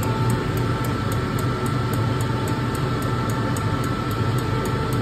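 Diesel injector test bench running a Delphi common-rail injector: a steady motor hum with a fast, even ticking of about four a second.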